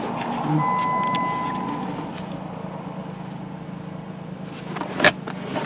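Vehicle running with a steady low hum. About half a second in, a single electronic beep lasts roughly a second, and near the end there is a sharp click.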